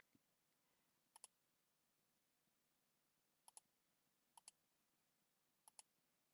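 Faint clicking from computer drawing input: four quick double clicks spread over a few seconds, made while placing path nodes with the Bezier pen tool.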